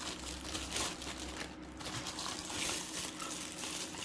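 Packaging rustling and light handling noises, irregular and fairly quiet, as a smoke alarm is taken out of its box.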